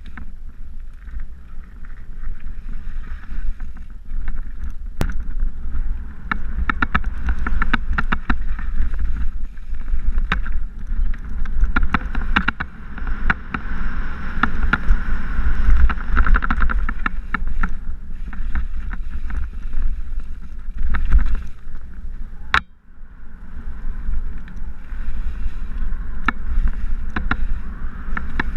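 Mountain bike ridden fast down a dirt singletrack, heard from a rider-mounted action camera: wind buffeting the microphone over the rumble of tyres on dirt, with the bike rattling and clattering over bumps. A sharp knock about three-quarters of the way through is followed by a brief lull in the noise.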